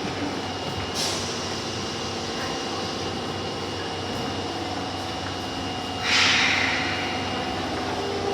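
Osaka Metro Tanimachi Line 22 series subway car: a steady rumble with a faint steady high tone, a click about a second in, then a loud hiss of air about six seconds in that fades over a second, as the tone stops.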